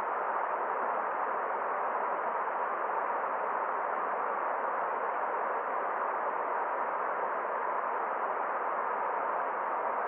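Rocky forest stream rushing over boulders and small cascades: a steady, unchanging rush of water.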